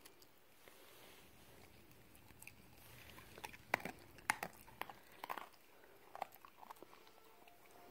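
Cocker spaniel chewing a mouthful of food. A run of sharp, separate crunches starts a little before halfway, and a few more follow later.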